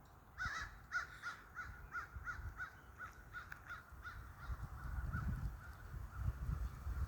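A bird calling a long, rapid series of short harsh notes, about three a second, that fade away over several seconds. A low rumble builds near the end.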